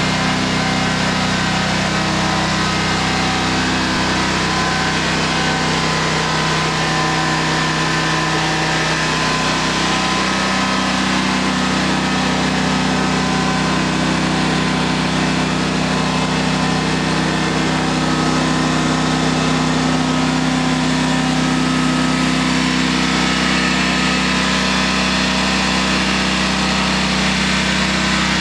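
Liquid-cooled engine of a Toro Z Master zero-turn mower running steadily at an even pitch.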